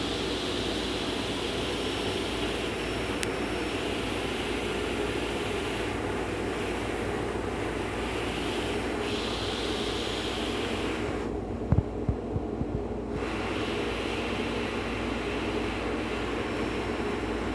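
Automatic offset printing plate processor running with a steady, even whir and hum as a plate feeds out through its rollers. The hissing top drops away for a couple of seconds about two-thirds through, where a few short low knocks are heard.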